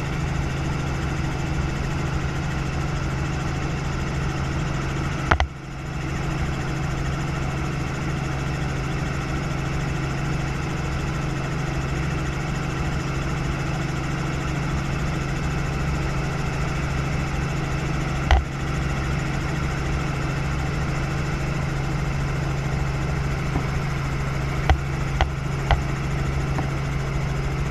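Robinson R44 Raven helicopter's piston engine and rotor running steadily in flight, heard inside the cabin as a constant low drone. A brief knock sounds at about 5 seconds and again at about 18 seconds, and three small clicks come near the end.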